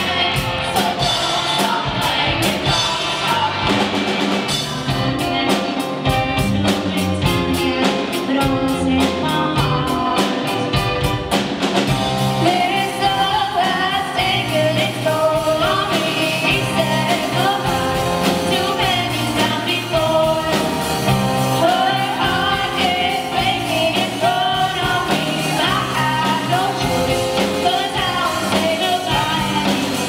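Live amplified pop-rock performance: young voices singing into microphones over a band of keyboards, drum kit and guitars. Sharp cymbal and drum hits run for about the first twelve seconds, after which the sung melody stands out more.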